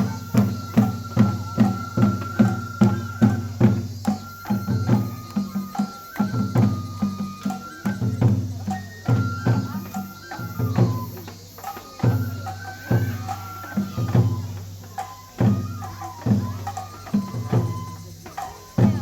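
Japanese festival music accompanying a lion dance: a drum struck in a quick even beat, about three strokes a second, then slower, spaced strokes after about four seconds, under a high flute melody of held notes stepping up and down.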